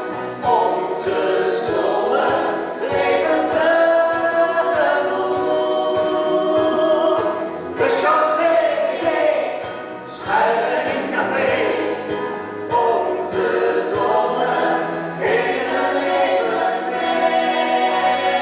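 Stage-musical song: several voices singing together in Dutch over band accompaniment.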